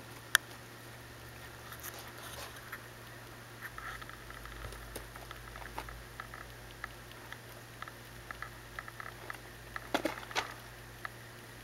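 A baby rabbit licking the metal sipper tube of a cage water bottle, making small irregular clicks and ticks, with one sharp click about half a second in. A louder cluster of scuffling clicks comes about ten seconds in as another kit pushes in.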